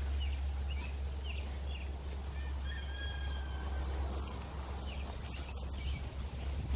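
Birds chirping: a few short chirps, then a couple of longer whistled notes about three seconds in, over a steady low rumble.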